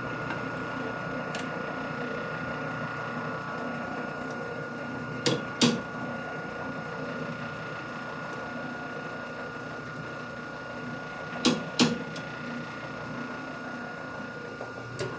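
Sharp metal clicks from a chuck key turning the jaw screws of a lathe chuck as a part is trued up: two quick pairs of clicks several seconds apart, then a single weaker click near the end, over a steady shop hum.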